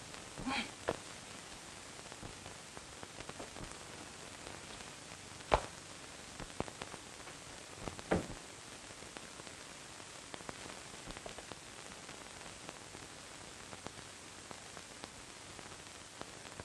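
Steady hiss of an old optical film soundtrack, with a few scattered soft clicks and thumps, the loudest about five and a half and eight seconds in.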